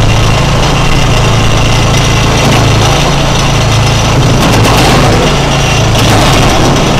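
Urban SMV70 branch logger running steadily under its engine while it cuts white oak into chunks, with a few sharp clacks of wood in the second half.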